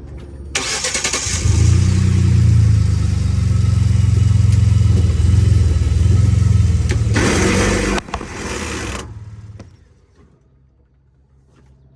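Pickup truck engine starting and running with a loud grinding noise over its steady low hum, which the owner wonders may come from the converter; the noise swells briefly near 7 seconds in, and the engine shuts off near 10 seconds in.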